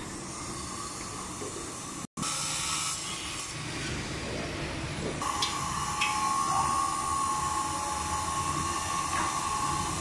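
Construction-site din of machinery and traffic. About halfway in, a steady high-pitched machine whine starts and holds.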